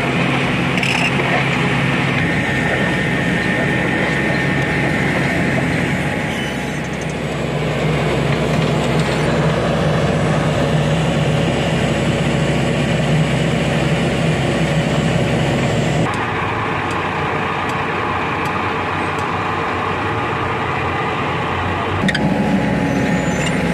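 Heavy diesel engines of road-paving machinery and a dump truck running steadily. The engine sound changes abruptly about two, sixteen and twenty-two seconds in.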